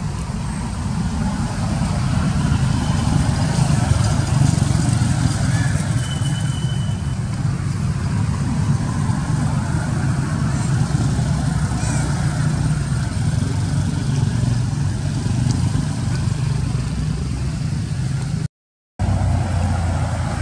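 Steady low rumble, cutting out for a moment near the end.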